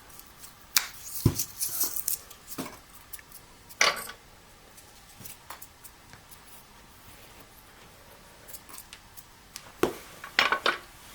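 Scattered knocks, clicks and light clatter of a floor jack and its packing being handled, in a few short bunches with a quieter stretch in the middle.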